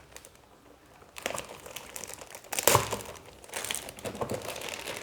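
Motherboard packaging crinkling and rustling as the board is unwrapped and lifted out, starting about a second in and loudest a little past the middle.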